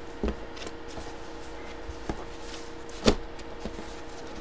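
A jersey being folded and packed into its cardboard Hit Parade box: fabric and cardboard handling with a few knocks, the loudest about three seconds in and a smaller one just after the start. A steady low electrical hum runs underneath.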